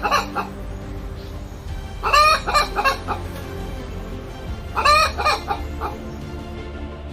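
Chickens clucking, short bursts of calls about every two and a half seconds.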